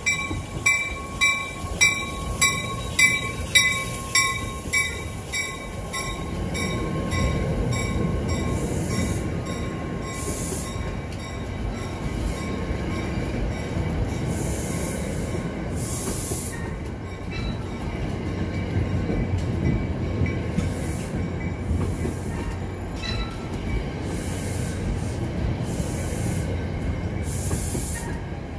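A passing NJ Transit commuter train: its warning bell rings about twice a second for the first five seconds or so, then stops. After that the passenger coaches rumble steadily past at low speed, with short hissing wheel squeals every second or two.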